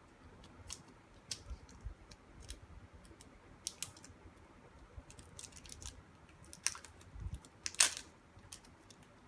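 Scattered light clicks and taps at an irregular pace, with a busier cluster near the end and the loudest click about eight seconds in.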